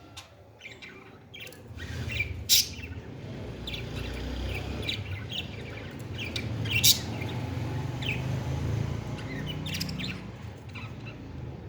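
Parrots chirping in short, scattered calls, with two sharper, louder chirps, one early and one past the middle, over a low rumble.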